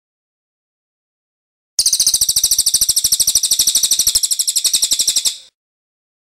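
Songbird's rapid, high-pitched trill of quickly repeated, evenly spaced notes, starting about two seconds in and lasting about three and a half seconds before stopping.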